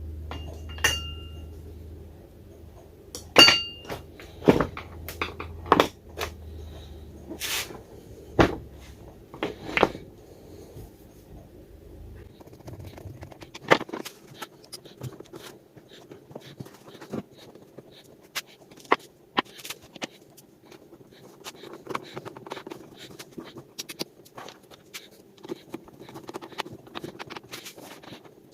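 Irregular clicks, knocks and clinks of a shop vacuum's housing and screws being handled and fitted back together, with several sharp knocks in the first ten seconds and lighter clicking after. A low hum stops about twelve seconds in.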